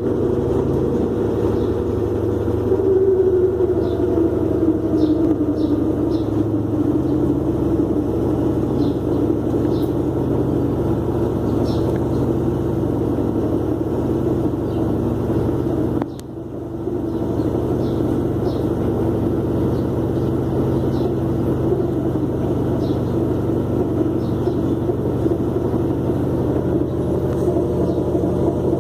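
Engine running steadily with a low hum, the 'strange noise' of the LT12F, with faint high ticks every second or two. The sound dips briefly about halfway through.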